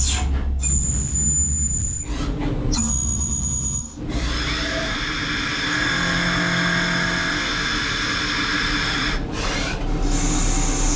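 Tornos GT32 Swiss-type CNC lathe machining a brass bar, thread cutting with coolant: a steady high machine whine over cutting noise. It breaks off briefly twice in the first few seconds, and a falling whine comes near the end.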